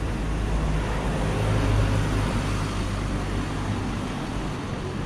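City street traffic noise, led by the steady low hum of a motor vehicle engine running close by. It grows a little louder about two seconds in and eases off toward the end.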